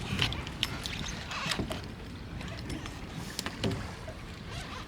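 Scattered light clicks and knocks from handling on a small boat, over a steady low rumble.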